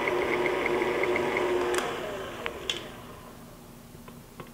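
KitchenAid tilt-head stand mixer running at low speed with the paddle beating thin batter. A little under two seconds in it is switched off with a click, and the motor hum slides down in pitch and fades. A few light clicks follow near the end as the mixer head is tilted up.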